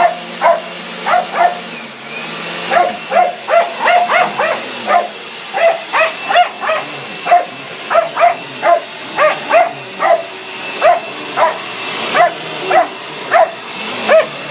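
Dog barking over and over at a running vacuum cleaner, about two barks a second, with the vacuum's steady whine underneath.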